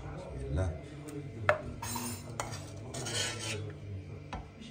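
Cutlery clinking and scraping against dishes, with a few sharp clinks.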